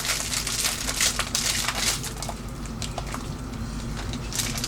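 Plastic bread bag crinkling and rustling as slices of bread are taken out, with scattered small clicks. It is busiest in the first couple of seconds and then thins out.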